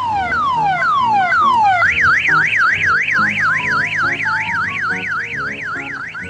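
Electronic siren effect: a run of falling whoops, about two a second, that switches a couple of seconds in to a fast up-and-down warble, about four cycles a second, over background music.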